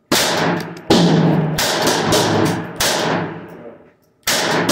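GSG pistol firing five shots at an uneven pace, each sharp crack trailing off in a long echo under the range's wooden roof.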